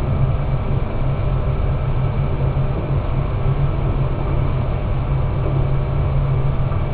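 Steady ventilation noise from an extraction fan, an even rush with a low hum underneath.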